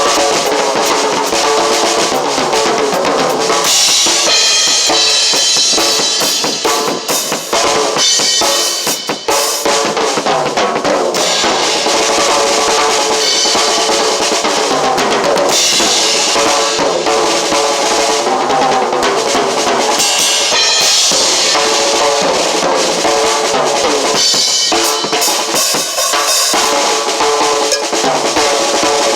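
A drum kit played loudly and without a break, with kick drum, snare and cymbals. The playing dips briefly about nine seconds in.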